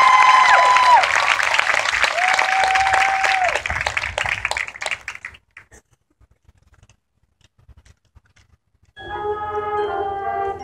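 High school marching band playing loud held brass chords over percussion, which stop about five seconds in. After a few seconds of near silence, a new sustained chord enters about nine seconds in.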